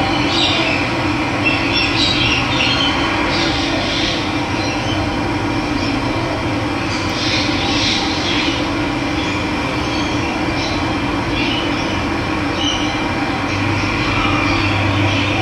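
Steady rush of running water, with birds chirping briefly now and then over it.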